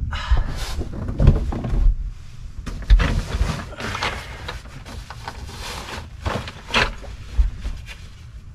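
Handling noise: a folding camping cot being sat on and its packed carry bag being picked up and handled. Fabric rustling and shifting with a few short knocks and thumps scattered through.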